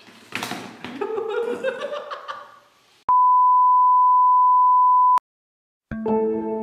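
A steady, loud test-pattern beep tone held for about two seconds and cut off sharply, after a man's voice laughing. Soft piano music begins near the end.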